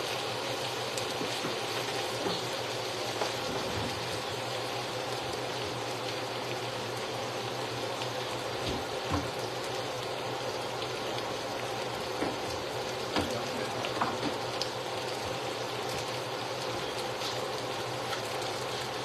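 Bacon, chorizo and onion sizzling steadily in a frying pan, with a few light knocks from handling food on a cutting board.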